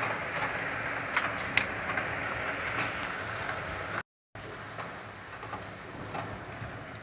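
Hailstorm: a steady rush of heavy rain and hail, with a few sharp clicks of hailstones striking in the first two seconds. The sound cuts out briefly about four seconds in and comes back as a softer hiss.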